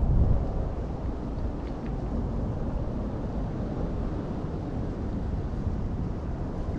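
Strong wind buffeting the microphone: a steady low rumble, with a stronger gust right at the start.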